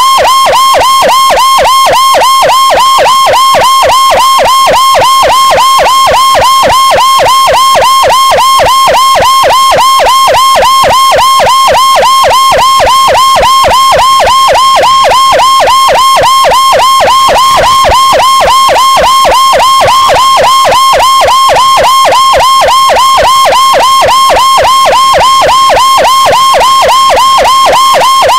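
Motorcycle-mounted electronic siren (CJB 200E siren with a Toa YD100i horn speaker) sounding a fast yelp, about five sweeps a second, very loud and unbroken. It is clearing traffic for an ambulance whose own siren is dead.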